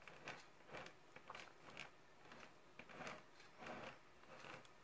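Near silence: room tone with faint soft ticks about twice a second.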